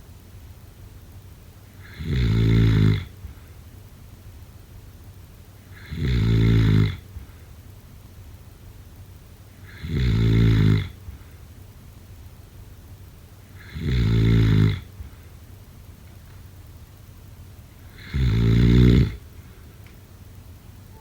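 Snoring: five loud snores, each about a second long, coming evenly about every four seconds with quieter breathing in between.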